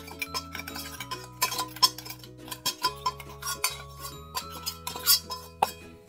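A metal spoon scraping and tapping inside a stainless-steel spice grinder jar, knocking ground spice powder out onto a plate: many quick, irregular clinks and scrapes. Soft background music plays under it.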